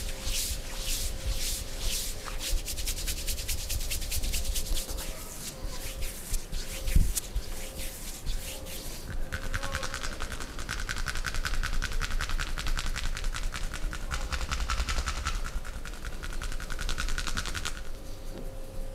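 Hand massage on skin: rubbing and rhythmic percussive strokes, slow at first, then a long run of very fast tapping strokes that stops near the end.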